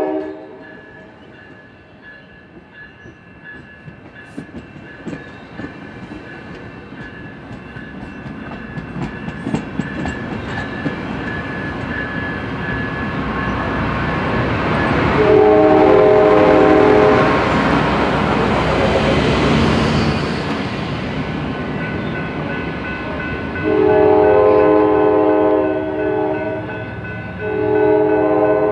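A train approaching and passing with its horn sounding. A horn blast cuts off just as it begins, then the train grows louder with clicking wheels on the rails. A long horn blast comes about fifteen seconds in as the train passes at its loudest, and two more long blasts sound near the end over the rumble of the cars.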